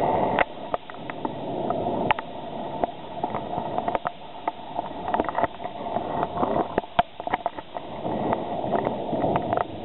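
Steady wash of water noise with many irregular sharp ticks and clicks scattered through it.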